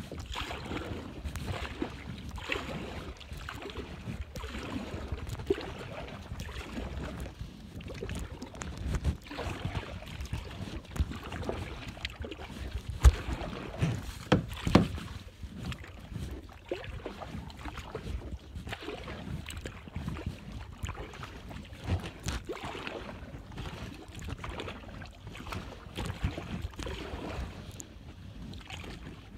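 Paddling a plastic sit-on kayak through calm water: uneven rushing and splashing with wind buffeting the microphone. Scattered sharp knocks come through, the loudest a cluster about halfway through.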